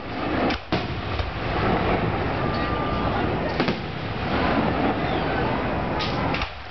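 Aerial fireworks shells bursting one after another, a loud continuous din of booms with several sharp bangs, over the voices of a crowd.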